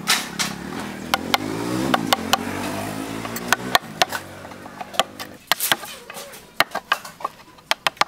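Small hatchet chopping and paring a hardwood gun-stock blank: sharp, irregular knocks of the blade on wood, coming closer together in the second half. An engine hum runs underneath and stops abruptly a little before the middle.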